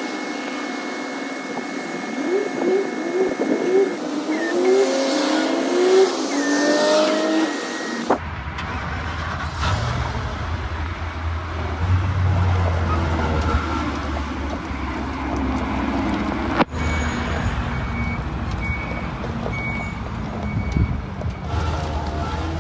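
Ford F-450's 6.8-litre V10 gasoline engine running and revving in several short rising pulls over the first eight seconds or so. After an abrupt cut about eight seconds in, it settles into a steadier low rumble.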